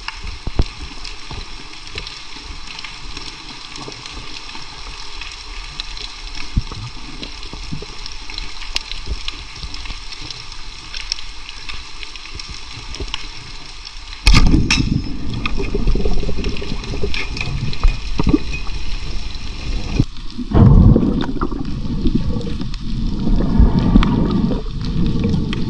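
Underwater sound at a diver's camera: a steady hiss with scattered clicks and crackles, then about halfway a sudden loud snap from a rubber-band speargun firing. Loud, churning water noise follows, with another surge a few seconds later.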